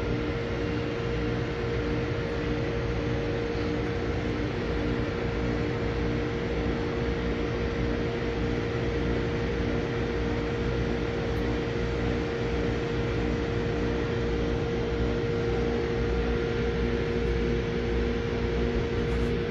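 Steady mechanical hum with a constant low drone and an even hiss, like a fan or ventilation unit running.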